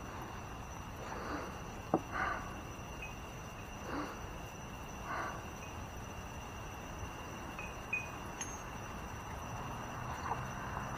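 Wind chimes tinkling softly, a few faint, scattered notes every second or so.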